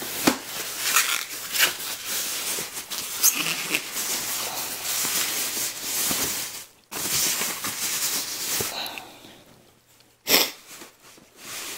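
Rustling and crinkling of a soft white packing sleeve as a pen display is slid out of it and handled, dying away near the end, with one sharp tap about ten seconds in.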